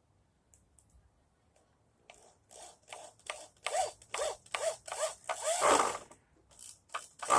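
Hand saw cutting through wood: rasping back-and-forth strokes, about two a second, starting about two seconds in, with a brief pause near the end.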